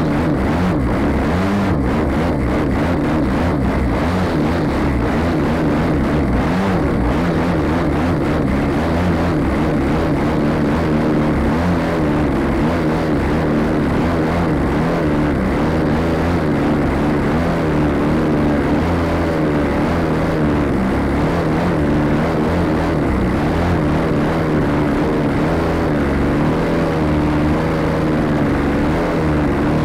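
Propeller engine of an aerobatic plane running steadily in flight, its pitch wavering slightly, with air rushing over the wing-mounted camera.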